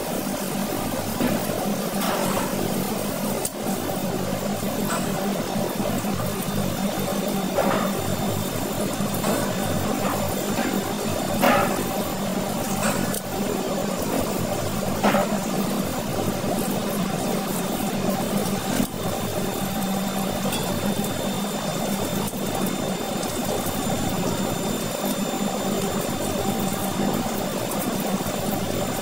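Tap water running steadily into a stainless steel sink, with a few sharp clicks as a knife cuts through a giant freshwater prawn's shell.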